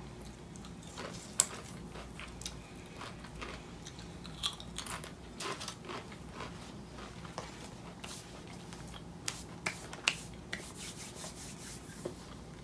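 Crunching and chewing of a Pringles potato crisp: irregular short, crisp crackles, the loudest about a second and a half in.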